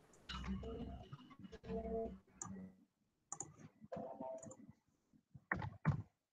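Computer mouse clicking, a few scattered clicks ending in two sharp, louder clicks near the end, over faint indistinct background sound in the first half.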